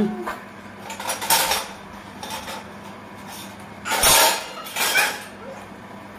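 Stainless steel bowls and tumblers clinking against each other and a wire dish rack as a toddler handles them: a few short bursts of clatter, the loudest about four seconds in.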